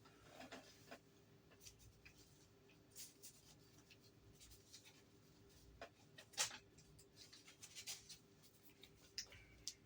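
Faint handling noise: light rustling and scattered small clicks, with the sharpest click about six and a half seconds in.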